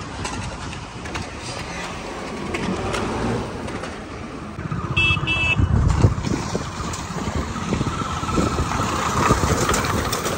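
Motorcycle riding on a dirt track, heard from the pillion seat: engine running with wind buffeting the microphone, louder from about halfway. About five seconds in, two short high beeps sound.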